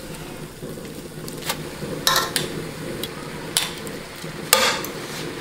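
Freshly boiled fettuccine sizzling in a hot frying pan of chicken and peppers, with the excess cooking water flaring up in a few short hisses.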